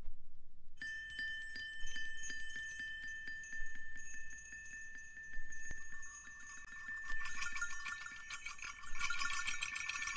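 Chime-like tinkling: many light strikes over sustained high ringing tones. It starts about a second in and thickens into a denser shimmer with lower tones added around seven seconds in.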